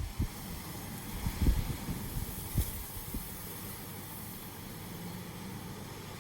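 Wind gusting against the microphone in a few low buffeting surges, over a steady hiss of rain. The gusts come in the first half and die down in the second.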